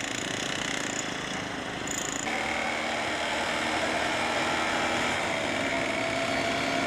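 A motor vehicle's engine running steadily, with a steady whine coming in about two seconds in.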